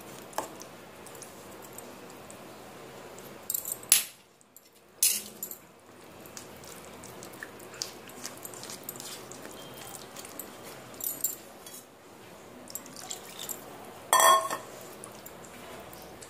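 Semolina batter being mixed by hand in a stainless steel bowl: soft wet squelching and sloshing with scattered small clicks, and sharp taps about four and five seconds in. Near the end a short, loud metallic clink rings out.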